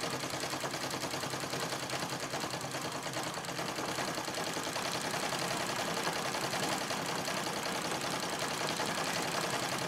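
Singer 66 treadle sewing machine stitching steadily at speed, a fast, even clatter of needle and mechanism. It carries a slight rattle, which the quilter takes as the sign that it is due for oiling and for the lint to be cleaned out of the feed dog and bobbin area.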